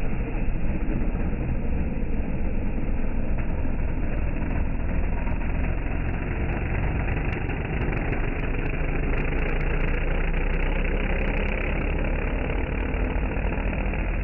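Drag cars' engines idling at the starting line, a steady low rumble.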